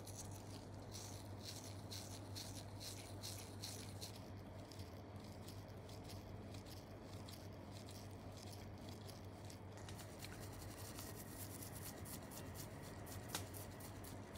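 Pin vise hand drill scraping and twisting in the tiny holes of a scale-model brake disc, a run of short crisp scratching strokes a few per second, quickening into finer scratches in the last few seconds, with one sharp click near the end.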